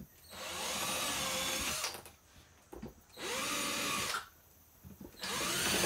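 Cordless drill boring pilot holes into an OSB subfloor patch: three separate runs of about a second each, the pitch rising as the motor spins up at the start of each run.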